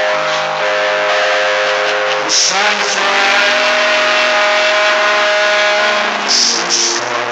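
A man singing a slow ballad live with piano accompaniment, holding a long sung note through the middle.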